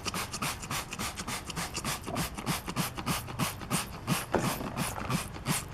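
Trigger spray bottle squirted over and over in quick succession, a fast, even run of short hissing sprays, about five a second, as degreaser is sprayed onto a plastic part.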